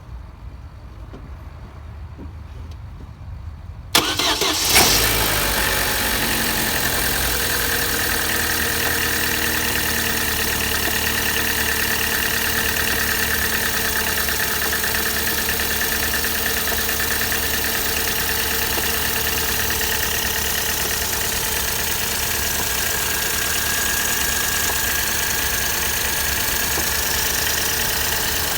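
Opel A16XER 1.6-litre four-cylinder petrol engine cranking briefly and catching about four seconds in, then idling steadily. It is recorded to show a deep knock that the owner calls an 'underground knock'.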